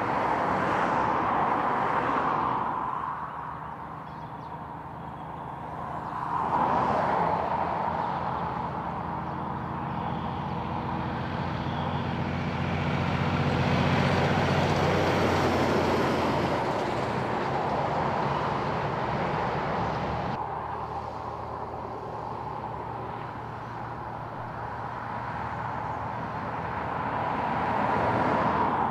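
Kenworth truck-and-trailer unit's diesel engine running and tyres hissing on the road as it approaches and passes, loudest about halfway through, with cars going by. The sound changes abruptly about two-thirds of the way in, after which traffic runs more quietly.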